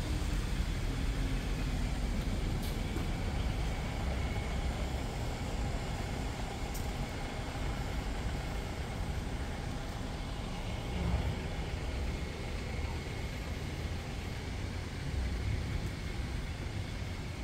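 Distant city traffic: a steady low rumble with no distinct events.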